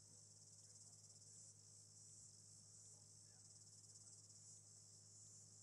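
Near silence: very faint, steady, high insect chirring like crickets, over a faint low hum.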